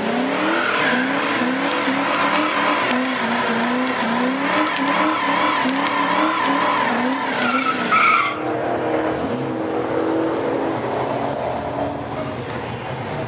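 Ford Falcon XT sedan doing a burnout. The engine is held high, its revs rising and falling about twice a second, while the rear tyres spin. About eight seconds in the revs drop suddenly and the engine settles lower as the car rolls out.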